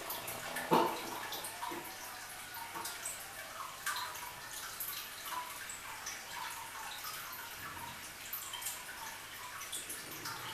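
Irregular small drips and plinks of water, with one louder plop about a second in.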